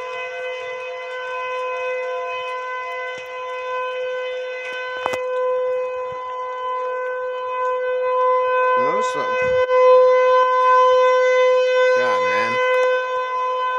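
Outdoor civil-defense tornado warning siren sounding a steady, unwavering alert tone with several overtones, growing louder about two-thirds of the way through.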